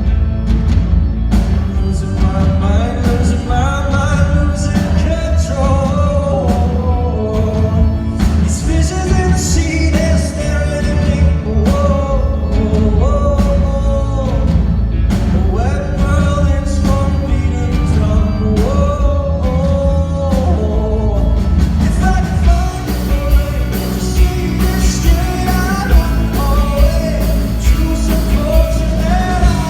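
Live rock band playing with a male lead singer carrying the melody, over steady drums and bass.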